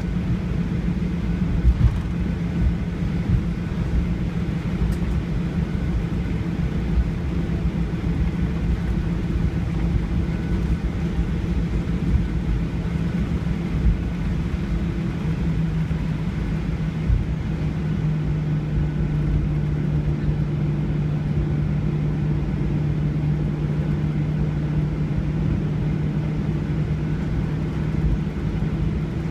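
Jet airliner cabin noise heard from a window seat: a steady low rumble of engines and airflow with a constant low hum, which drops slightly in pitch about halfway through.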